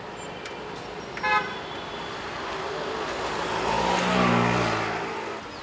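Road traffic: a short horn toot about a second in, then a motor vehicle passing, its engine growing louder, loudest about four seconds in, and fading again.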